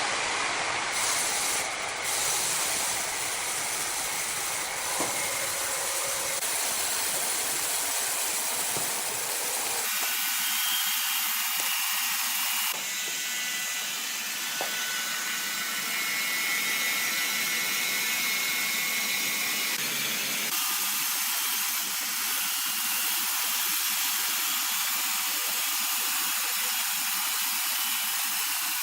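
Steady hissing noise of sawmill machinery running, with faint high whining tones in places. The sound changes abruptly three times, the low rumble dropping out after the first change.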